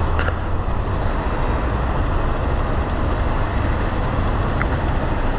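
Small Chinese motorcycle engine running at low speed, with a steady rumble of street traffic around it.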